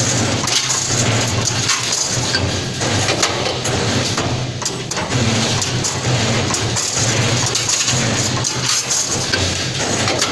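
CNC steel wire bending machine running on double wire: a steady motor hum that drops out and returns, with many sharp clacks and knocks as the steel wire is fed and bent.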